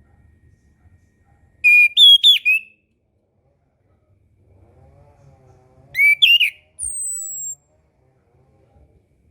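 Orange-headed thrush singing two short phrases of clear whistled notes, a few seconds apart. The second phrase is followed by a thin, high whistle that slides slightly downward.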